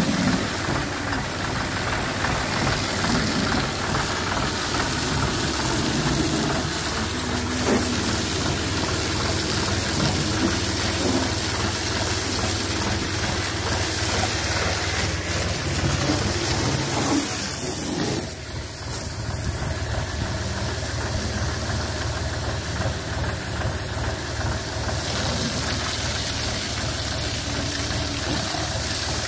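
John Deere 5075E tractor's diesel engine running steadily, driving a turbine airblast sprayer whose fan adds a steady hiss, as water is run through the sprayer to rinse it at the end of a spraying job.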